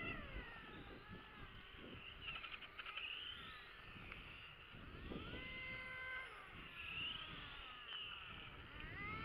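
Faint whine of 1/5-scale RC racing motorcycles, the pitch rising and falling as the bikes speed up and slow down through the corners.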